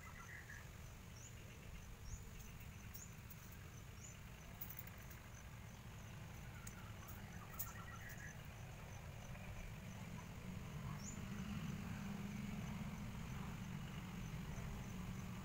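Outdoor garden ambience: a steady low rumble that grows a little louder about ten seconds in, with a bird's short, high, rising chirps repeating about once a second and a few faint clicks.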